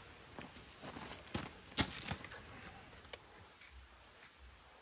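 Hard-cooked skin and meat of a roasted whole pig crackling and tearing as the ham is cut and pulled away from the carcass. A handful of sharp cracks fall in the first two seconds, the loudest about two seconds in, then it goes quieter.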